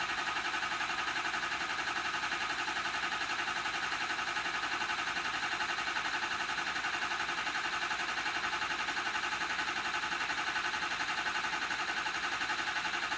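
Ford 6.0L Power Stroke V8 diesel cranking on the starter with a steady, even pulse and not catching. It cannot start because the injection control pressure sensor has been removed for a gauge test of the high-pressure oil pump.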